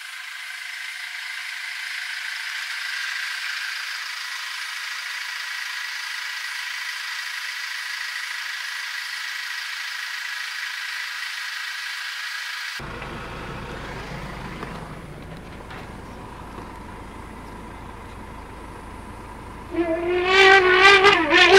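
African elephant trumpeting near the end, a loud, wavering, brassy call as it charges a hyena. Before it there is a steady high hiss of background sound, then after a sudden change a low rumble.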